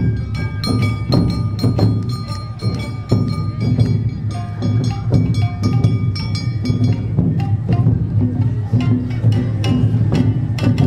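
Awa odori festival music: taiko drums and a clanging kane hand gong beating a fast, steady rhythm, with held bamboo flute notes over the top.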